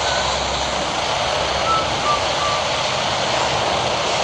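Jet airliner engines running, a steady rushing noise. A few faint short high tones sound over it.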